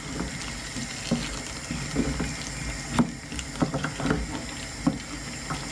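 Wooden spoon stirring potato and courgette in an aluminium pot, knocking against the pot several times over a steady hiss of the simmering pot.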